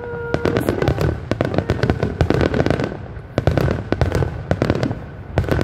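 Aerial fireworks shells bursting overhead, a dense run of booms and crackling pops going on without a break.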